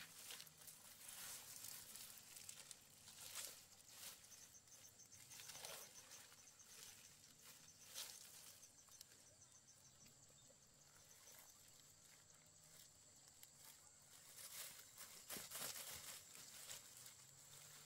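Near silence: faint outdoor ambience with scattered soft clicks and knocks.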